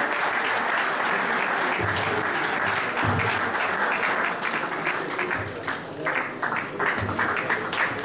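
Audience applauding, a dense wash of clapping that thins out to scattered separate claps in the second half.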